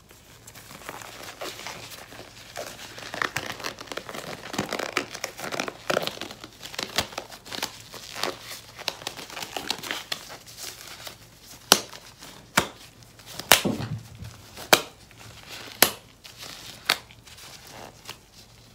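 White rubber gloves being pulled on and handled close to the microphone: a steady crinkling and rubbing, then about six sharp snaps roughly a second apart in the second half.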